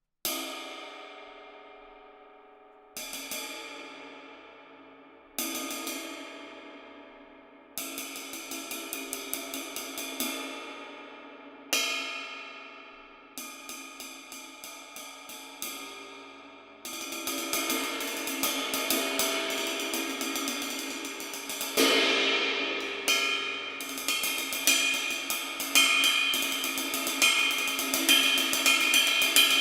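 22-inch Mehteran Rain Ride cymbal: three single strikes each left to ring out and fade, then ride patterns played on it with a stick, turning into a steady, busier ride rhythm with a few louder accented strikes later on.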